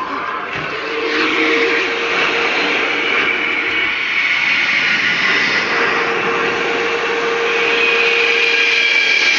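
Unexplained "strange sky sound": a loud, long, steady drone with a held tone and a hissing, metallic roar over it, swelling in about a second in and holding steady.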